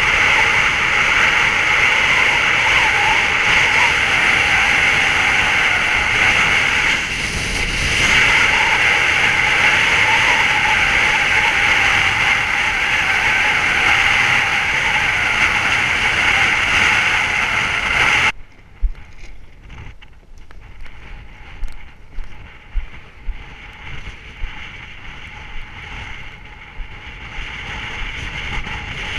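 Loud steady rush of wind over the action camera while moving at speed, cutting off abruptly about two-thirds of the way in. After that, quieter wind with scattered irregular knocks.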